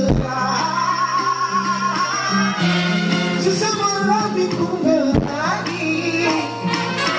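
Amplified music over a concert sound system: a steady bass line changing notes every second or so, with a wavering sung melody above it.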